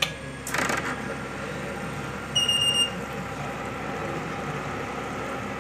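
Water vending machine control panel's buzzer giving a single high beep of about half a second as the panel is powered on. A click and a short rustling noise come just before it, over a steady faint background hum.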